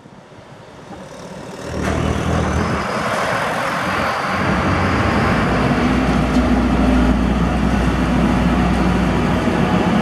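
Claas Tucano 440 combine harvester driving, its diesel engine running with a steady low hum under the loud rush of the machine. It grows louder over the first two seconds, then holds steady.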